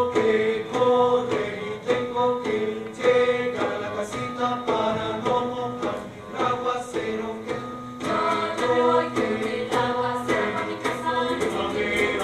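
Music with a choir singing, in chords that change about twice a second.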